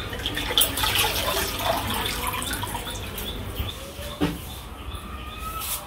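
Water sloshing and dripping as a spin mop is dipped in a plastic bucket of water and wrung out, with scattered clicks and a knock about four seconds in.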